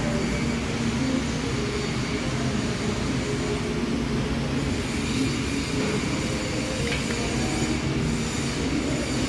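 Steady, continuous workshop machinery noise with a low hum and a few wavering tones, unbroken throughout.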